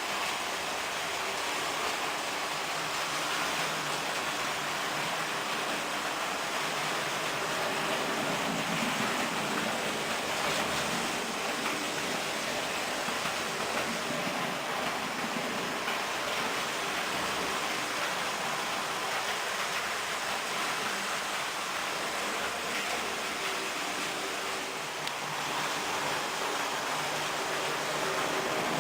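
H0-scale Märklin model trains running on the layout: a steady rolling whirr of wheels on metal track and small electric motors, with a faint hum underneath.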